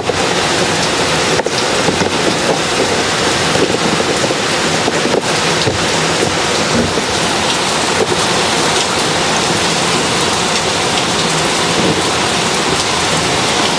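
Loud, steady rushing hiss, with a few faint clicks as the puddle light and its wires are worked into the bottom of the car door panel.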